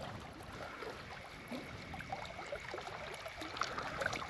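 Small wind-driven waves on a lake lapping and gurgling against the shore in irregular little splashes and clicks.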